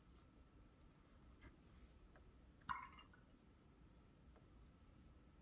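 Near silence: room tone, with one brief faint tap about halfway through.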